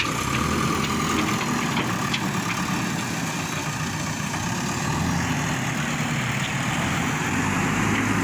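Heavy diesel engine running steadily at low speed, a constant low hum.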